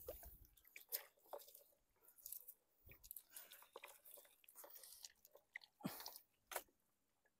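Faint rustling and crackling clicks of a wet nylon mesh fish-and-shrimp trap being lifted and shaken out by hand, with a few sharper ticks about a second in and near six seconds.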